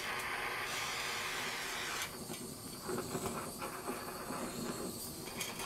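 Hand-held gas torch flame hissing steadily as it is played over a welded stainless steel mug to heat-color it; the hiss softens and turns more uneven about two seconds in.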